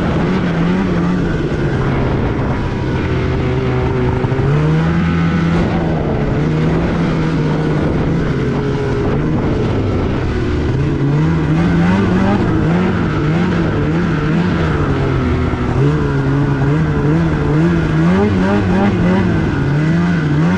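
Snowmobile engine running under way, its pitch holding fairly steady at first and then rising and falling over and over in the second half as the throttle is worked.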